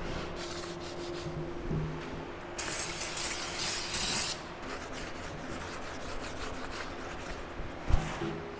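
A shop towel rubbing and wiping over a steel plate, with an aerosol can of brake cleaner hissing in a spray of about two seconds a few seconds in. A short thump near the end.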